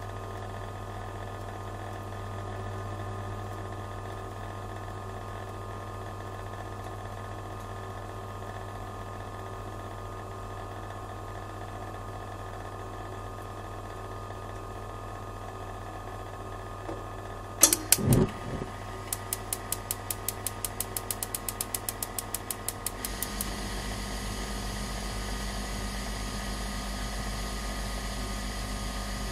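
Domestic gas flow heater humming steadily, then two loud clicks of its controls, followed by a rapid run of igniter ticks, about six a second, for about four seconds. The burner then lights and the gas flame settles into a steady hiss with a low rumble.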